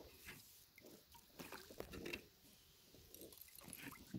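Faint scattered splashes and rustles from hooked trout thrashing at the water's surface on a fishing line as it is pulled in.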